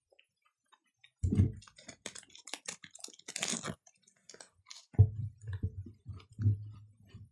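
Close-up chewing of a soft Japanese Golden Oreo cookie: irregular wet mouth clicks and small crunches, with a few short, low closed-mouth hums in the second half.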